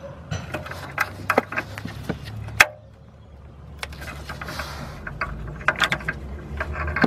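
Irregular metallic clicks and knocks of a socket wrench tightening a new upstream oxygen sensor, with a sharp click about two and a half seconds in and a short pause after it.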